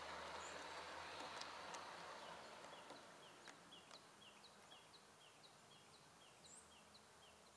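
Running noise of a large-scale model Budd RDC-3 railcar rolling along garden track, fading away as it comes to a stop. Then a small bird calls a rapid series of two-note chirps, close to three a second.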